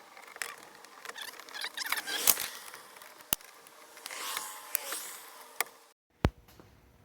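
Scattered small clicks and scrapes of hand work on a Jeep door, prying out the door lock-rod clips. The sound cuts out almost completely about six seconds in, followed by one sharp click.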